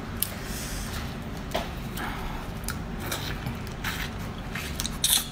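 Wet squelches and short clicks of a raw shrimp being peeled with gloved hands and then sucked and chewed, over a steady low background hum. The sharpest click comes near the end.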